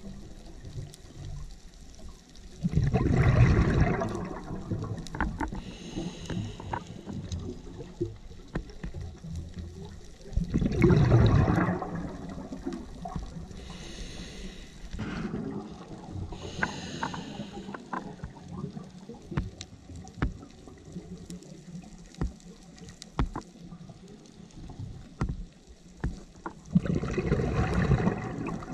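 Scuba regulator breathing underwater: short hissing inhalations alternating with three loud rushing, bubbling exhalations, near the start, about a third of the way through and near the end. Faint scattered clicks run between the breaths.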